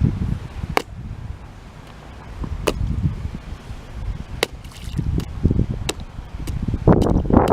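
Sharp single knocks every second and a half to two seconds, over a low rumbling haze. The knocks are the kind of sound of chopping or hammering in a yard nearby.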